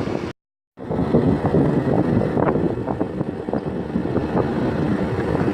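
Wind buffeting the microphone over the rumble of a moving vehicle, with scattered knocks. The sound cuts out completely for a moment shortly after the start.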